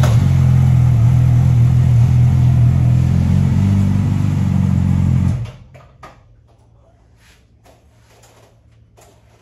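Suzuki GSX-R600 sportbike's inline-four engine with a full-system aftermarket exhaust, running loud and steady without revving, then cutting off suddenly about five seconds in. Faint knocks and rustling follow.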